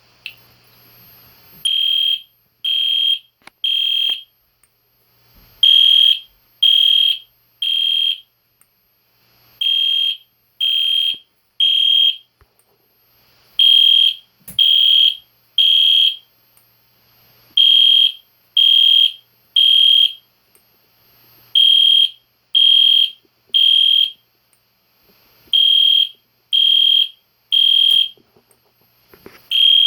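EST Genesis horn strobe fire alarm horn sounding in the temporal code-3 pattern. Three loud, high-pitched beeps of about half a second each, then a pause of about a second and a half, repeating steadily after starting about two seconds in.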